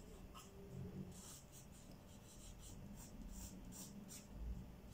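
Pencil sketching on drawing paper: a string of short, faint scratchy strokes as the outline of a figure is drawn.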